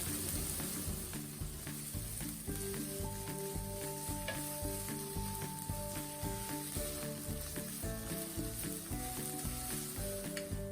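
Food frying in hot oil in a pan, a steady sizzle with some stirring, under soft background music.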